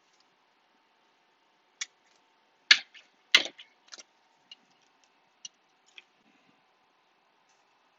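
Scattered clicks and taps of trading cards being handled on a tabletop, about seven of them, with the two loudest close together about three seconds in.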